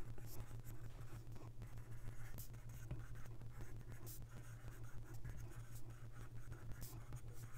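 Apple Pencil tip writing in cursive on an iPad Pro's screen protector: a run of light, irregular taps and strokes, over a steady low hum.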